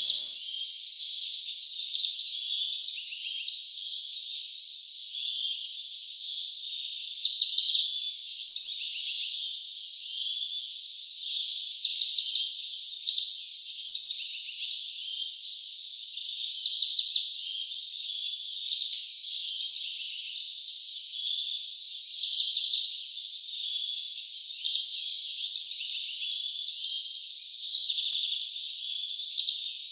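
Rainforest chorus of crickets and other insects with birds: a steady high-pitched insect drone, over which a short call repeats about every two seconds. There is no low sound at all.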